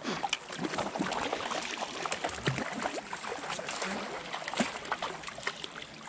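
Water splashing and sloshing, with many small irregular knocks and clicks.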